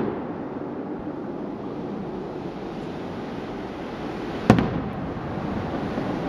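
Fireworks display: a steady rumble lingers after a volley of shell bursts, then a single sharp aerial shell bang about four and a half seconds in, followed by its echo.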